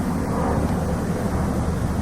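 A steady low rumble, continuous and unchanging, with a hiss-like haze above it.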